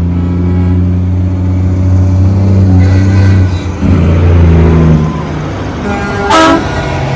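Diesel semi-truck engines running loud as the trucks pass close by, their pitch shifting about four seconds in. A short air-horn toot sounds near the end.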